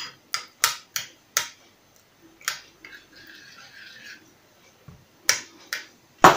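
Tomato juice poured from a glass into a ceramic bowl of sour cream: a run of sharp clicks and taps at the bowl, a soft splashing of the juice for about a second, then a few more knocks, the loudest right at the end.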